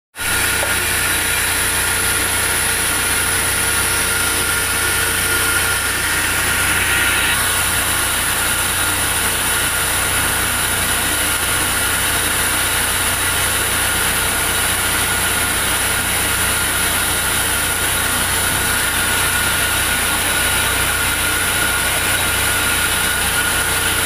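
Large vertical band saw mill running steadily without a log in the cut: an even machine hum with a steady high whine.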